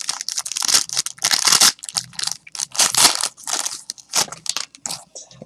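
Trading card packaging being torn open and crinkled, in quick irregular rips and crackles.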